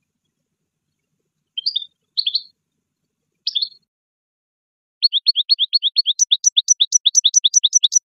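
Goldfinch-type finch song: three short chirping phrases, then about five seconds in a fast trill of evenly repeated notes, which turns into a quicker high-and-low two-note trill near the end.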